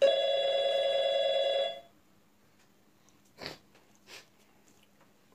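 A loud steady buzzing tone, two pitches sounding together, starts suddenly and cuts off after about two seconds. Two soft taps follow later.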